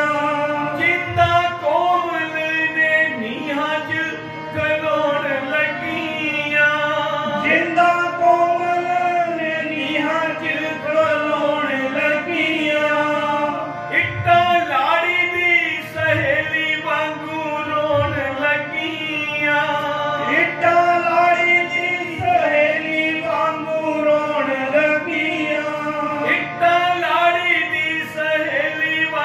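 Punjabi shabd kirtan: a man sings a drawn-out, melismatic devotional melody over the held notes of a harmonium, with tabla accompaniment and a few deep bass-drum strokes.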